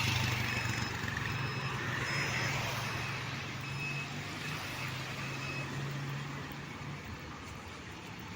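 Street traffic: a motor vehicle's engine runs with a low, steady hum over general traffic noise, and the hum fades out about seven seconds in. Short high beeps sound at uneven intervals through the first six seconds or so.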